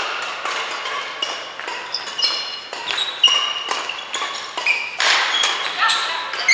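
Badminton rally: rackets hitting the shuttlecock in quick, sharp strikes, with players' shoes squeaking on the court floor.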